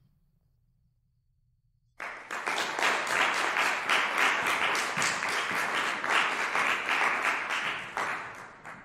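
Audience applauding. It starts suddenly about two seconds in and tapers off near the end, after a faint low hum.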